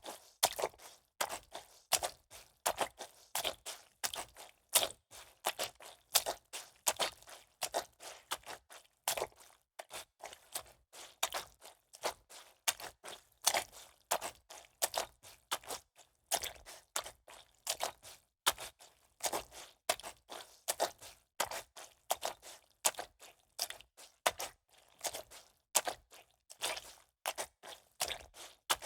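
Footsteps of shoes walking through shallow water, each step a short wet splash, at a steady walking pace of about two steps a second.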